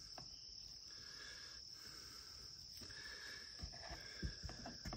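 Faint insects trilling in the background on and off. A few soft knocks near the end come from sandwich triangles being handled on a wooden cutting board and a steel plate.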